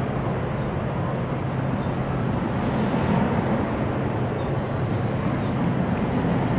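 New Jersey Transit double-deck passenger coaches rolling past a platform: steady wheel-on-rail noise with a low hum underneath.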